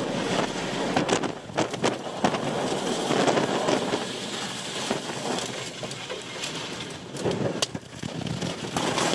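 A tornado's wind and rain hitting a car: a steady noise broken by many sharp knocks and bangs of debris striking the car.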